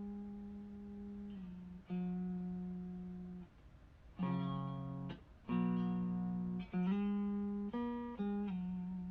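Electric guitar played through an SL Drive overdrive pedal: Stratocaster neck single-coil pickup into an Orange Micro Dark amp. Long sustained single notes are followed by two ringing chords about four and five and a half seconds in, then a few quicker notes near the end.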